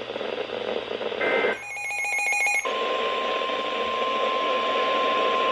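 NOAA Weather Radio alert over a hissy radio signal: about a second in, a short burst of warbling SAME digital header tones, then the steady single-pitch 1050 Hz weather radio warning alarm tone, which signals that a new warning is about to be read.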